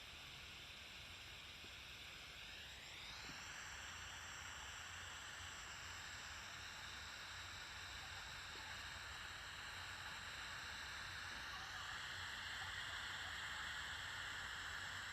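Faint vacuum cleaner motor whine with a steady rushing noise. The whine rises in pitch about three seconds in, then steps slightly down and up again later.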